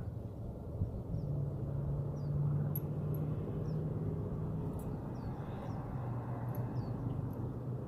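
A steady low engine-like hum, with small high bird chirps about once a second and a few faint ticks.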